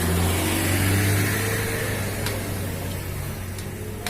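A steady low engine hum that swells about a second in and then eases off, with one sharp click a little over two seconds in.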